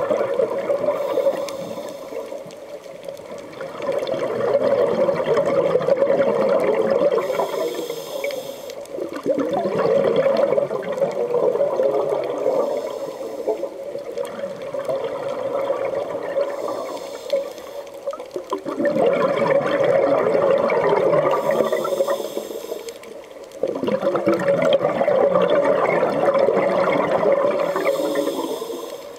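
Scuba diver breathing through a regulator underwater: long rushes of exhaled bubbles every few seconds, with quieter gaps between breaths.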